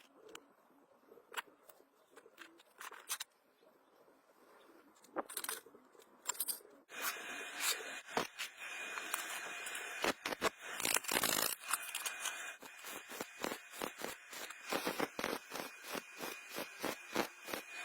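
Electric welding arc: after a few scattered clicks, a steady hiss with dense, irregular crackling pops starts about seven seconds in and keeps going.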